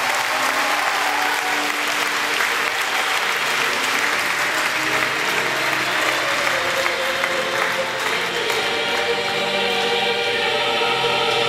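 Recorded choral music with sustained sung chords, and an audience applauding over it; the clapping thins and the choir comes through more clearly in the last few seconds.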